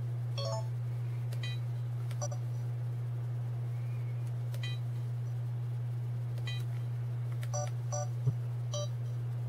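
Sony Cyber-shot DSC-H300 compact camera giving short electronic beeps as its control-wheel buttons are pressed to move through the menu, about eight beeps at irregular intervals. A steady low hum runs underneath.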